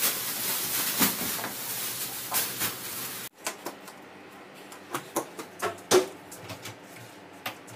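A plastic bin bag rustling and crinkling as it is shaken out. After a sudden cut about three seconds in, a quieter room with scattered light knocks and taps.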